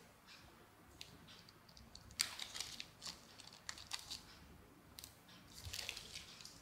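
A small clear plastic packet crinkling and rustling as it is handled, in two short bouts: one about two seconds in, another about five seconds in.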